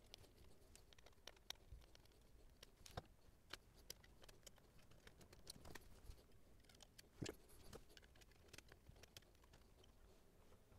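Faint, scattered clicks and taps of the SABA Transall radio's front dial panel being handled, lifted and refitted against its metal chassis, with one slightly firmer knock about seven seconds in.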